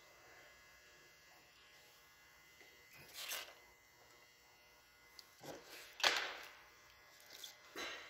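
Bundled automotive wires of an engine wiring harness being handled on a wooden bench: four short, faint rustles and scrapes, the loudest about six seconds in, over a low steady hum.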